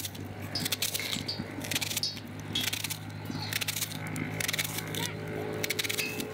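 Kitchen knife slicing through a raw white onion held in the hand, a crisp cut about every half second to a second, over a steady low hum.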